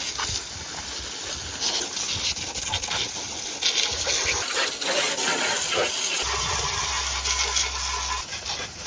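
Water spraying hard into a truck's empty engine bay to wash off old grease and grime, a steady hissing spray that shifts as the jet is moved around.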